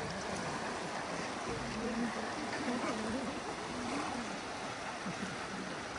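Steady rush of water where a brackish creek runs into the sea, with people's voices talking indistinctly over it.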